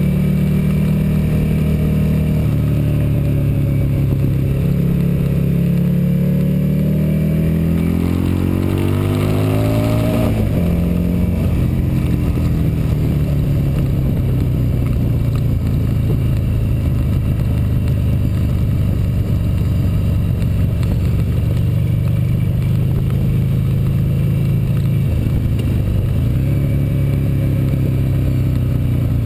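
Motorcycle engine running under way on a race track, heard from a camera mounted on the bike. The revs climb for about three seconds, drop sharply about ten seconds in, then hold steady.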